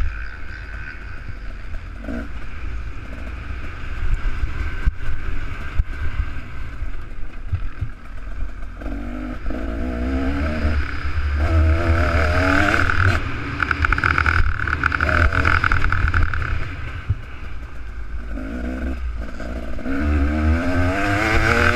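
Two-stroke motocross bike's engine revving hard, its pitch climbing, dropping and climbing again several times as it pulls through the gears, with a steady rumble of wind on the microphone.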